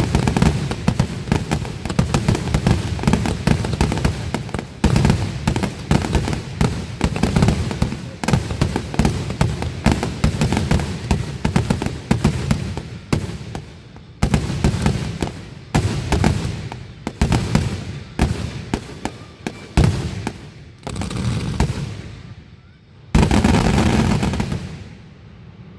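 Fireworks finale barrage: aerial shells bursting in rapid, overlapping bangs that thin out late on, ending with one last big burst about 23 seconds in that fades away.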